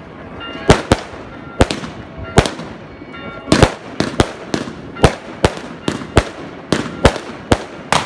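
Aerial fireworks bursting overhead in quick succession: a run of sharp bangs at irregular spacing, roughly two a second.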